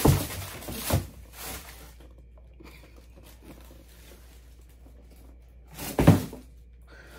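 Dull thunks of a cardboard shoe box holding heavy platform boots being handled and set down: one at the start, another about a second later, and the loudest about six seconds in.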